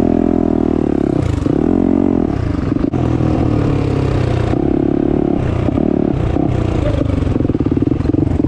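Turbocharged Yamaha YZ450F dirt bike's single-cylinder four-stroke engine running under throttle, its revs rising and falling as it rides, with a sharp click about three seconds in.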